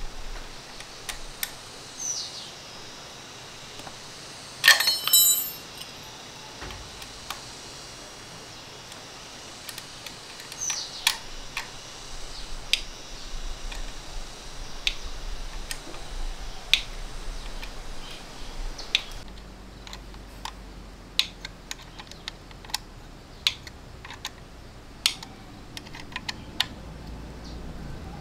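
Scattered light clicks and taps, like small parts and tools being handled during chainsaw work, with a louder ringing clatter about five seconds in.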